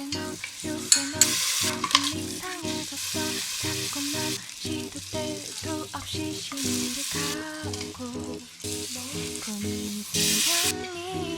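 Food sizzling as it fries in a cooking pan, coming in several separate stretches of hissing, over background music with a steady rhythmic melody.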